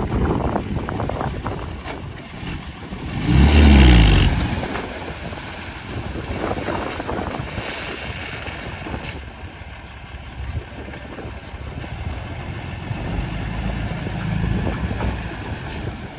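Diesel engines of heavy earthmoving machinery, a bulldozer and dump trucks, running steadily, with one loud surge with a falling engine note and hiss about three and a half seconds in, and a few sharp clicks later.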